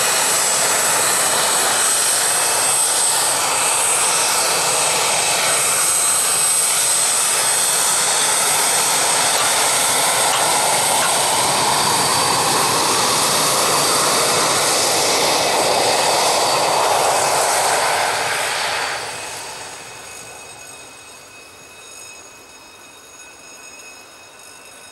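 Twin Honeywell F124 turbofans of an Alenia Aermacchi M-346 (T-346A) jet trainer taxiing past at close range: a steady loud jet rush with a thin high whine. Near the end it falls away sharply as the jet moves off, leaving a fainter whine.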